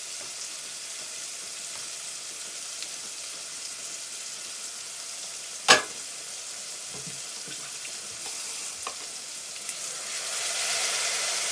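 Chopped food sizzling as it fries in an aluminium pot, in a steady hiss. There is one sharp clank a little past halfway, and the sizzle grows louder near the end.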